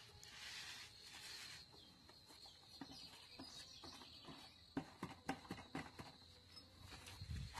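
Faint swish of a paint roller on a wall, then a string of light clicks and knocks as the roller is worked in a plastic paint bucket.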